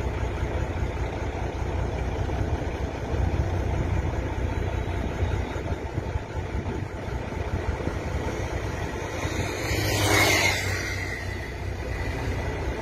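Low, steady rumble of an idling vehicle engine, with a brief louder rush of noise about ten seconds in.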